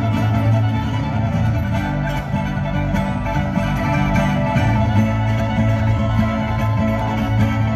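Live bluegrass string band playing an instrumental passage: banjo, fiddle, mandolin and acoustic guitar over an upright bass line.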